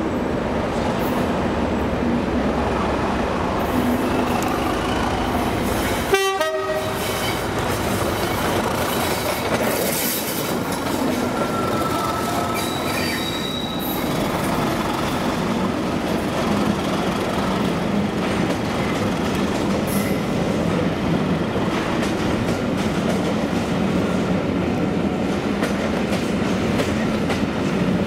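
Class 37 diesel-electric locomotive with its English Electric V12 engine running as it hauls a rake of coaches slowly past, its wheels clattering and squealing over pointwork. There is a brief toot on the horn.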